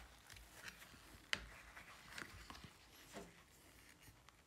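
Faint handling sounds of a rubber-gloved hand lifting a wet axe head out of a plastic tub: scattered small clicks and knocks, with one sharper click about a second and a half in.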